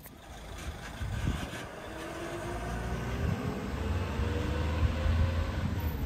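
Refuse truck engine running, getting louder over the first few seconds, with a faint whine that rises slowly in pitch.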